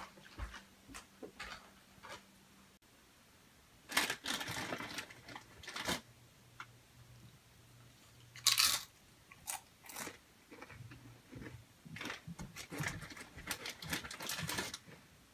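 Someone crunching and chewing Doritos tortilla chips, the crunches coming in irregular bursts, with the loudest crunch a little past halfway.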